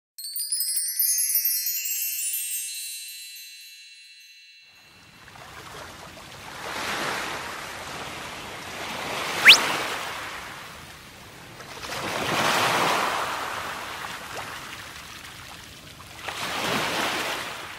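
A sparkling cascade of high chime tones falling in pitch for about four seconds. Then a rushing noise like surf swells and fades about three times, with one quick rising whistle about halfway through.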